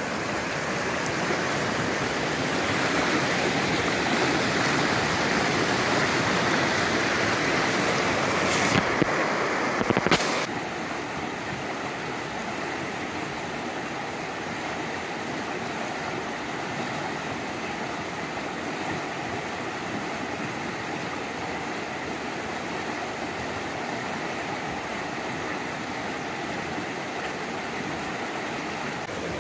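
Whitewater of a creek rapid rushing over rocks, a steady rush of water. It is loud close up at first, with two brief knocks about nine and ten seconds in, then drops to a softer, more distant steady rush.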